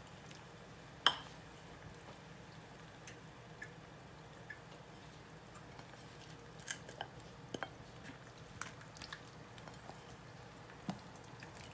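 Batter-coated potato fries frying in oil in a frying pan: scattered crackles and pops as more fries are dropped in, the sharpest about a second in and a cluster between about six and nine seconds in. A faint steady low hum runs underneath.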